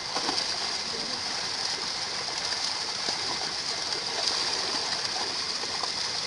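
Many fish crowded in a seine net thrashing at the water's surface, making a steady churning splash full of small slaps and crackles.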